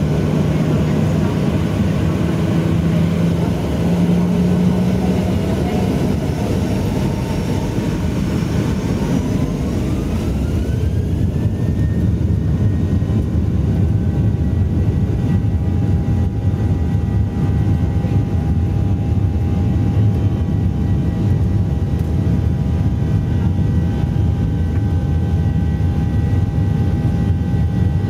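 Boeing 737-800's CFM56 jet engines heard from inside the cabin, spooling up to takeoff power. A whine rises in pitch about nine seconds in, then holds steady over a heavy low roar.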